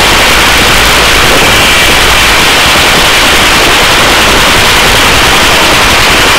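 Loud, steady rushing hiss of a helicopter hovering with its cabin door open: rotor wash and turbine noise, with no rhythm or change.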